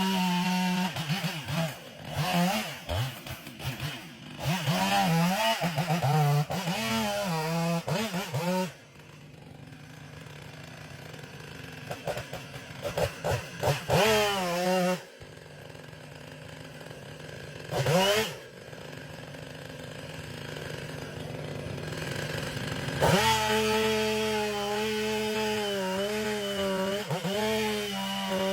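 Chainsaw engine revving and cutting, its pitch rising and falling under the throttle, alternating with quieter stretches at a lower, steadier speed. Loud spells start and stop suddenly several times.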